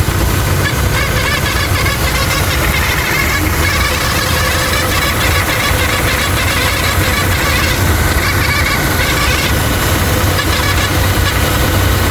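Car engine idling, with a steady high-pitched whine from a worn accessory-belt pulley (idler or tensioner), the sign of a failing pulley bearing.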